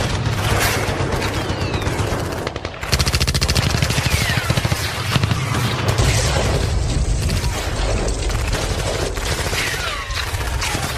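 Rapid automatic gunfire, a recorded machine-gun sound effect, firing in continuous bursts with a short break just before three seconds in. Brief falling whines cut through here and there.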